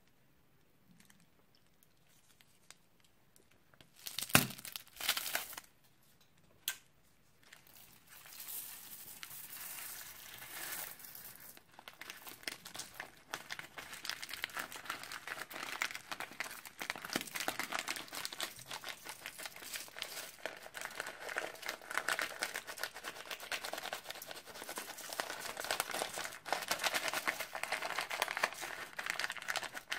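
Thin clear plastic bags crinkling as they are handled and shaken out, with a few sharp rustles about four to five seconds in, then continuous crinkling from about eight seconds on as sequins and paper confetti are emptied from them.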